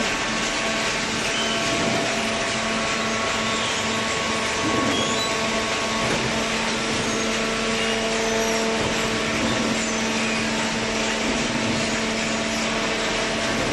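Hydraulic cardboard baler running steadily: the pump and motor give a constant hum and whine with no pauses or impacts.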